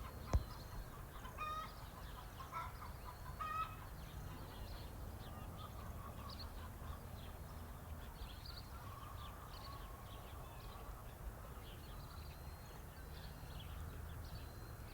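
Faint farmyard ambience: chickens clucking a few times in the first few seconds, then many small high bird chirps over a low steady background hum. A single sharp click comes just after the start.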